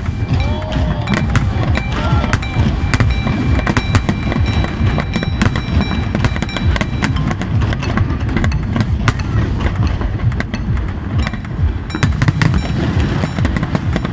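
Fireworks display: rapid crackling and many bangs from aerial shells bursting, over a constant deep rumble of the barrage.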